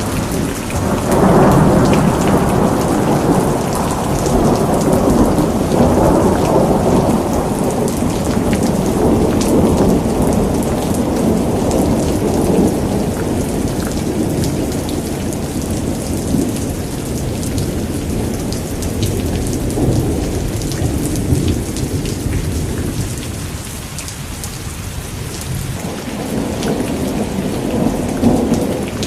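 Heavy rain pattering steadily, with long rolling thunder. One rumble builds about a second in and fades about twenty seconds later, and another begins near the end.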